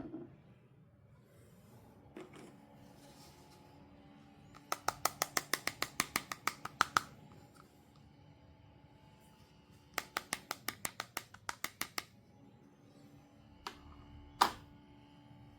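Two fast runs of sharp clicks, about eight a second, each lasting about two seconds, followed by two single clicks near the end.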